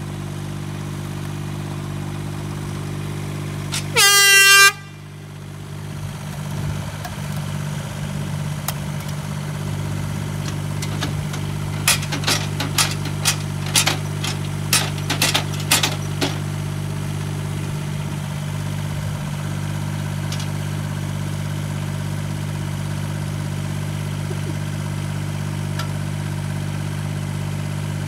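An air horn blasts once, loud and pitched, for under a second about four seconds in, over an engine idling steadily. From about twelve seconds in, a quick run of a dozen or so sharp knocks lasts some four seconds.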